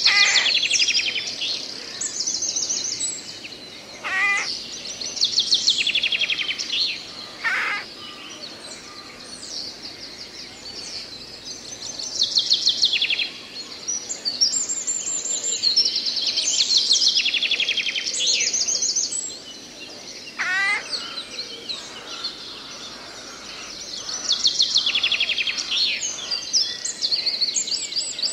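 Songbirds singing in a forest: short, rapid trilled phrases repeated every few seconds, with a few lower falling calls among them.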